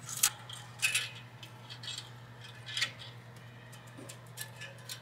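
Stiff mechanic's wire clicking and scraping against the steel truck frame as it is fished through a hole: a scatter of light metallic clicks, a few of them sharper, over a steady low hum.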